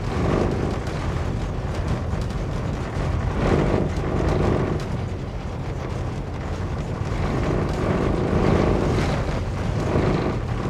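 Motorhome on the move at low speed: a steady rumble of engine and road noise that swells a little a few times.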